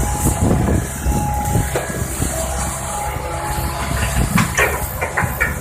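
Tracked hydraulic excavator's diesel engine running steadily, with repeated knocks and a few sharp metallic clanks and squeaks from its working gear in the second half, while loading soil into a dump truck.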